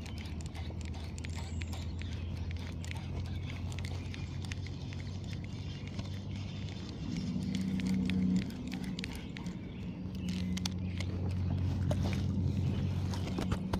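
Light clicks and small knocks from a fishing rod and reel being handled and cranked, over a steady low hum; a second, higher hum comes in about seven seconds in, stops, and returns near the end.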